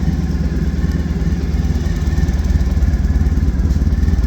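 Honda ST1100 Pan-European's V4 engine idling steadily.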